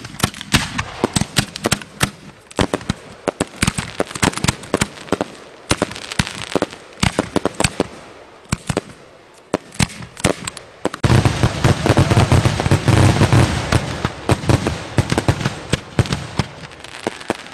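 Homemade aerial fireworks going off: a steady string of sharp bangs and crackles, building about two-thirds of the way in to a dense, loudest barrage of reports that then thins out.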